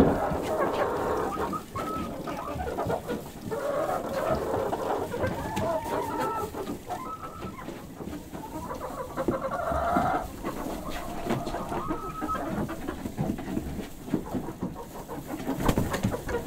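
Domestic hens clucking and calling at irregular intervals, with a single sharp knock at the very start.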